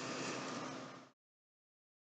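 Steady low hiss of room tone with a faint hum, cutting off abruptly to dead silence about a second in as the recording ends.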